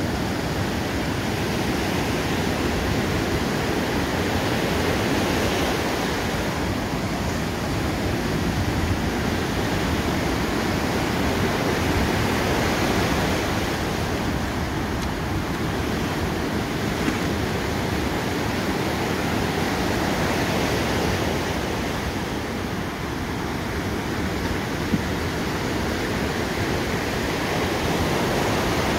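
Ocean surf breaking on the shore: a steady rushing noise with slow, gentle swells in loudness.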